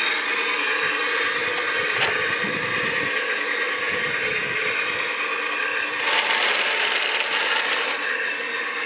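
Radio-controlled Scania Longliner model truck running as it drives along, its drive motor and gearbox giving a steady whine. A click about two seconds in, and a hiss lasting about two seconds starting about six seconds in.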